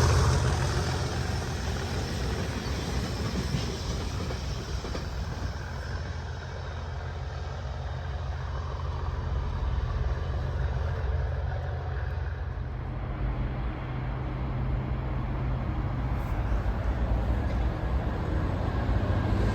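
Train passing on the line: loud at the start, then fading to a steady low diesel engine rumble that grows a little louder again toward the end.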